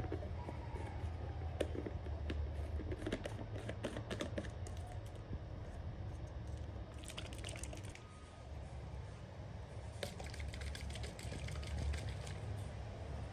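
Plastic baby bottle being handled: several bursts of light clicks and taps as its screw collar is twisted and the bottle is moved about.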